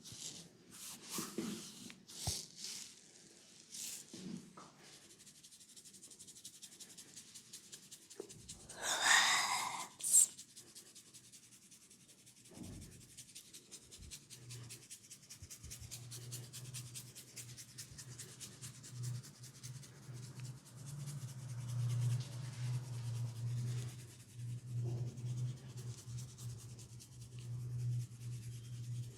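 Head massage: hands rubbing and working over hair and scalp in short scattered rustles, then continuous close rubbing. A loud brief noisy sound and a click come near the middle, and a steady low hum runs under the rubbing through the second half.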